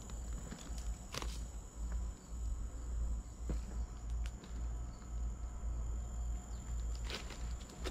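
A few footsteps on gravel track ballast, sharp separate crunches, over a steady high-pitched insect buzz and a low steady rumble.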